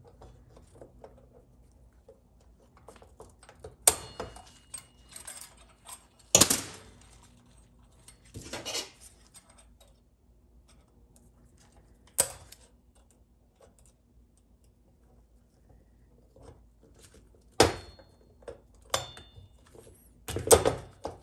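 Snap-ring pliers and a steel retaining ring clicking and clinking against the sun gear and sun shell as the ring is worked onto its groove, made fiddly by pliers slightly undersized for the ring. Several sharp metal clicks at uneven intervals, a few with a brief ring.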